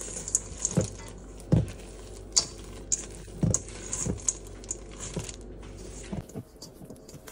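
Metal spoon stirring stiff chocolate-chip cookie dough in a stainless steel mixing bowl: irregular clinks and scrapes of the spoon on the steel, with dull thumps as the dough is pushed and turned, a few each second.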